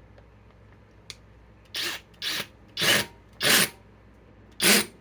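Cordless impact tool triggered in five short bursts, hammering at a fastener in old wood that won't drive in. There is a faint click about a second in, before the first burst.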